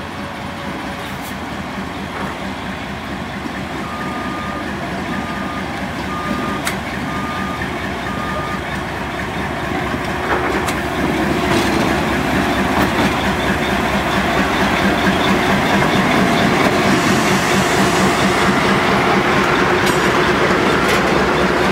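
Diesel-electric freight locomotive approaching and passing with a steady engine rumble, growing louder, followed by freight cars rolling by with wheel-on-rail noise. Five short, evenly spaced beeps sound near the middle.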